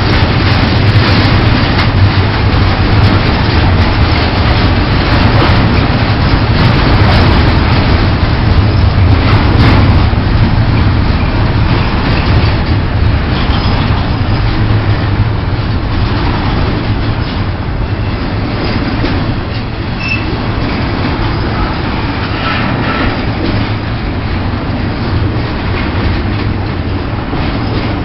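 Freight train rolling past at close range: a loud, steady rumble of railcar wheels on the rails, with a few sharp clacks in the first ten seconds. The sound grows a little quieter after about eighteen seconds.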